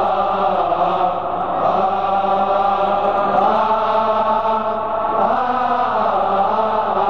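Male choir of Coptic deacons chanting a hymn in unison, long held notes whose pitch moves a couple of times.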